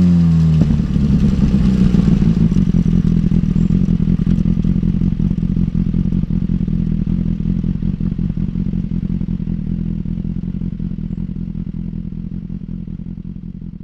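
BMW S1000R's inline-four engine winding down from falling revs and settling to a steady, lumpy idle about half a second in, with the bike stopped. The sound fades out gradually toward the end.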